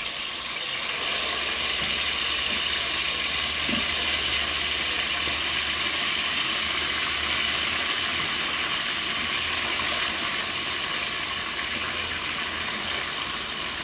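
Achiote-marinated chicken pieces frying in plenty of hot oil, a steady sizzle.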